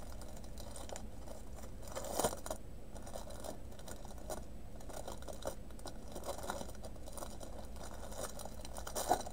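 Clear plastic bag of a diamond painting kit being handled and worked open at its adhesive seal: soft scattered crinkles, with a louder rustle about two seconds in and another near the end.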